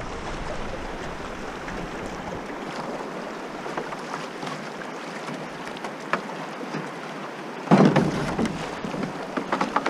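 Fast, shallow river water rushing around a canoe, with a little wind on the microphone. About eight seconds in comes a sudden louder grinding as the hull runs over the cobble bottom, followed by scattered knocks of stones under the hull.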